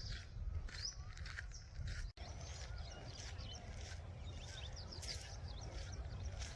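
Footsteps of someone walking at a steady pace, about two steps a second, with birds chirping faintly and a low rumble underneath.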